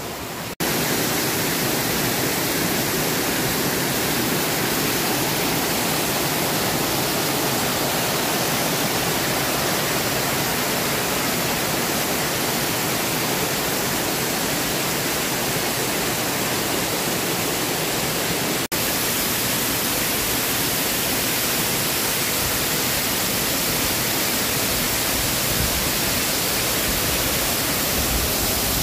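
Waterfall on a mountain brook rushing steadily, its flow running strong. The sound breaks off for an instant twice, about half a second in and about two-thirds of the way through.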